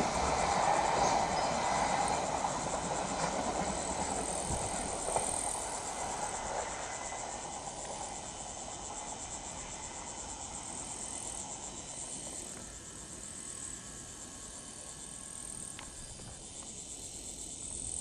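Koki container wagons of a freight train rolling away down the track, their rumble fading over the first several seconds and leaving the steady, high-pitched chirring of insects.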